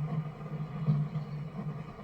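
Steady low hum of a vehicle engine, rising and falling a little in strength.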